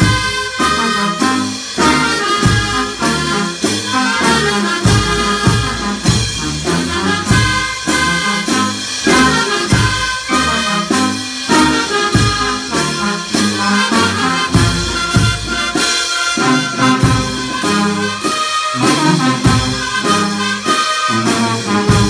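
Brass band playing a lively dance tune over a steady beat, with trumpets and trombones.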